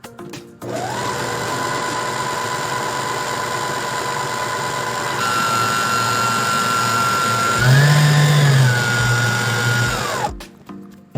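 Electric stand mixer motor beating whipping cream: it spins up with a rising whine, runs steadily, steps up to a higher speed about halfway through, goes briefly higher again, then winds down with a falling whine and stops.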